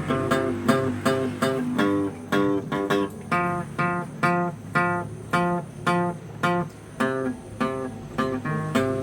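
Guitar played as a melody of single plucked notes, each ringing and fading, about two a second in an even rhythm.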